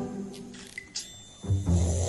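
Background music, with a man's loud snore starting about a second and a half in.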